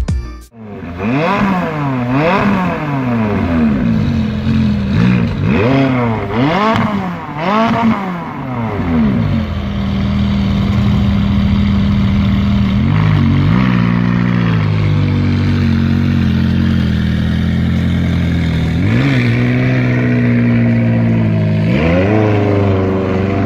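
McLaren 570S twin-turbo V8 exhaust, revved in a string of quick blips, then settling into a steady idle broken by three short single blips.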